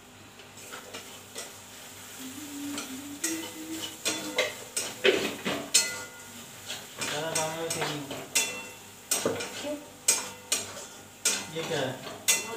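Metal spatula stirring and scraping around a steel kadhai of onions frying for a dal tadka, clinking against the pan at an irregular pace, over a light sizzle.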